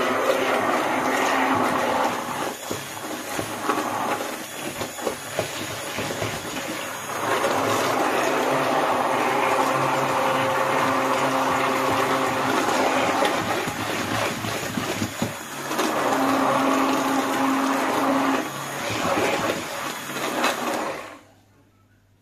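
Hand-held immersion blender running in a stainless steel bowl, puréeing cooked pumpkin into a cake batter. The motor swells and eases in several stretches as it works through the mix, then stops about a second before the end.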